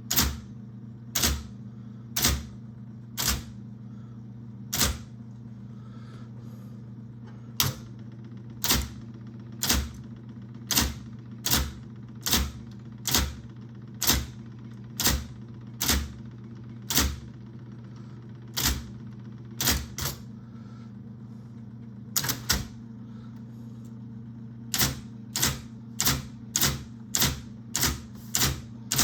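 IBM Selectric I electric typewriter being typed on, its typeball striking in sharp clacks about once a second, with short pauses and a quicker run near the end, over the steady hum of its running motor.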